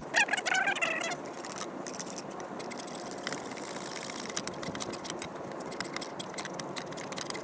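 Coping saw cutting through the end of a wooden axe handle, trimming the top flush with the axe head: a continuous rasp of rapid back-and-forth strokes. A brief higher-pitched sound comes first, in the opening second.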